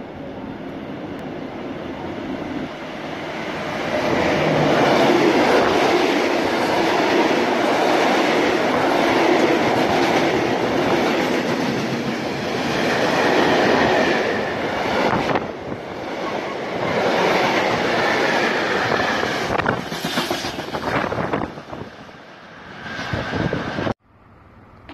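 Freight train of tank wagons passing close alongside the platform: loud rumbling of steel wheels on rails with the clatter of wagons over the rail joints. It swells as the train comes alongside, thins out later on, and cuts off suddenly near the end.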